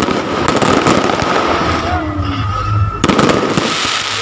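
Aerial fireworks display: a loud, dense, continuous run of bangs and crackling from bursting shells.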